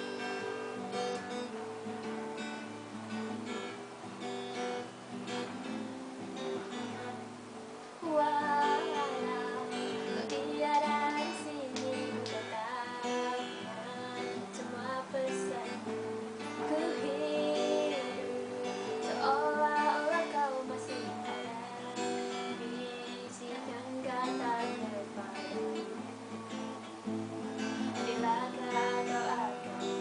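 Cutaway acoustic guitar strummed through a G–D–Em–C–D chord progression. About eight seconds in, a woman's voice starts singing over it, and the music gets louder.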